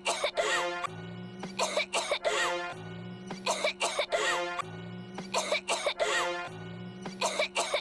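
Repeated coughing: a quick bout of three or four sharp coughs followed by a brief lower sound. The same pattern comes back about every two seconds, like a loop, over a steady tone.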